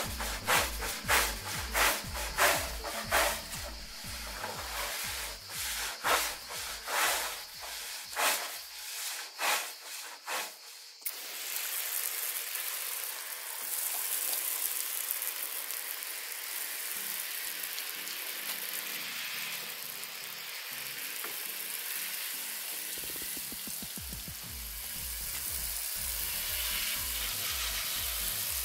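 Wood being sanded by hand, in regular rasping strokes about twice a second, stopping abruptly about eleven seconds in. After that there is a steady hiss with no strokes.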